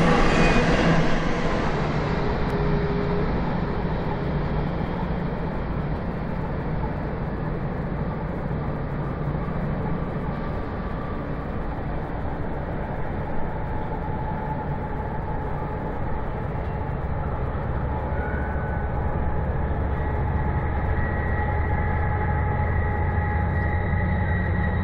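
BNSF freight train rolling past on the curve. The last cars go by close in the first couple of seconds, then a steady, duller rumble of a diesel-hauled intermodal train, with a low engine drone building toward the end.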